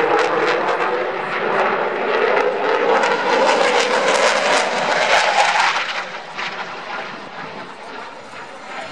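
Jet noise of a Eurofighter Typhoon's twin EJ200 turbofans as it flies a display pass. The noise is loud through the first half, peaks around four to five seconds in, then fades over the last few seconds as the jet moves away.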